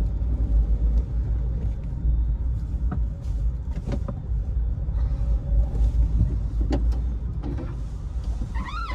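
Car driving slowly, heard from inside the cabin: a steady low engine and road rumble.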